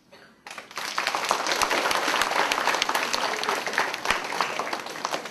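An audience applauding: a crowd of many hands clapping that starts about half a second in, holds steady, and thins out near the end.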